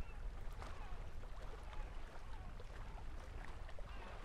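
Small waves lapping and gurgling against shore rocks, many small splashes, over a steady low wind rumble on the microphone.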